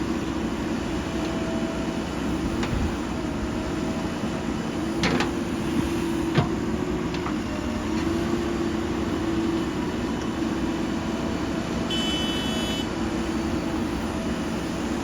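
JCB 3DX backhoe loader's diesel engine running steadily under work, with a couple of sharp knocks about five and six seconds in and a brief high-pitched tone near the end.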